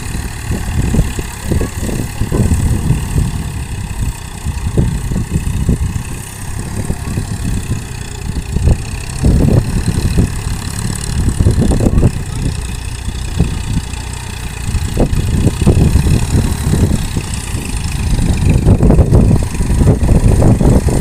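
Farm tractor's diesel engine running as it tills a flooded rice paddy, a loud, uneven low rumble that rises and falls.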